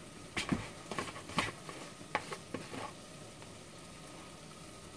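Blue plastic lid being taken off a plastic salt container: a quick run of sharp clicks and knocks lasting about two and a half seconds.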